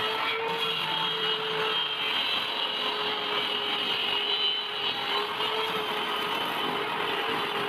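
Table saw running steadily, its blade cutting through a curved wooden workpiece pushed along a sled.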